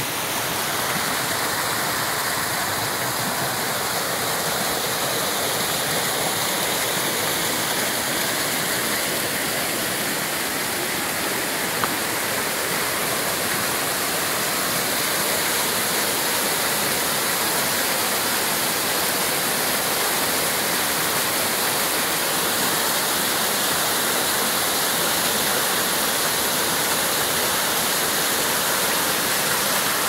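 Small waterfall pouring and splashing down over rocks: a steady, even rush of falling water.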